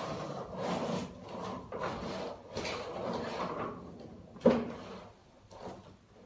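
A plastic toy being pushed and scraped across a wooden floor and under a low cabinet, in uneven scrapes and rubs, with one sharp knock about four and a half seconds in.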